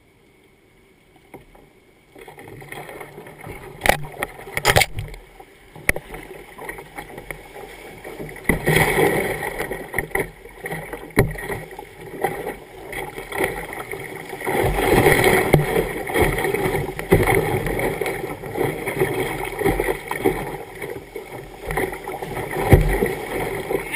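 Water rushing and splashing against a kayak's bow as it runs a rapid, starting about two seconds in after near silence and swelling in waves, with a couple of sharp knocks about four and five seconds in.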